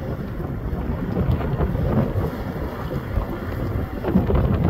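Low, steady rumble of a harbour tugboat working through broken plate ice, with wind buffeting the microphone and a few faint irregular crackles.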